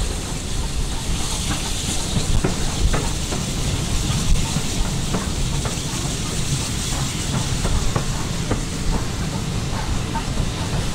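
Steam train hauled by BR Standard Class 2 2-6-0 locomotive 78022 running along a station platform: a steady steam hiss over the low rumble of the train, with light clicks of the wheels over the rail joints.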